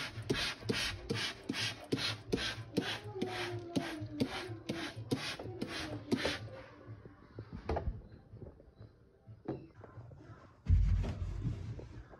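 Hand trigger spray bottle pumped rapidly, about three short hissing sprays a second for six or seven seconds, then stopping. Near the end a sponge scrubs the inside of a microwave with a rough rubbing sound.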